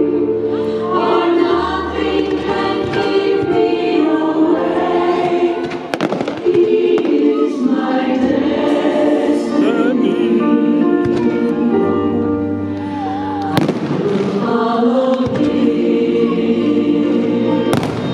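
Choral music with singing, played loud over a fireworks display, with sharp firework bangs cutting through about six seconds in, again at about fourteen seconds, and just before the end.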